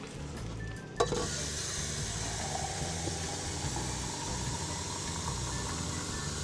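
Boneless chicken frying in a pan, a steady loud sizzle that starts abruptly with a knock about a second in.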